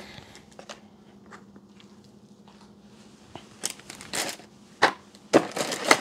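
Plastic packaging being handled: a few short crinkling rustles in the second half, after a quiet stretch with only faint ticks.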